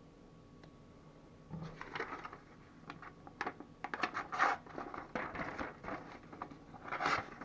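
Case medium stockman pocket knife being handled: scraping and sharp clicks that start about a second and a half in, loudest near the middle and again near the end.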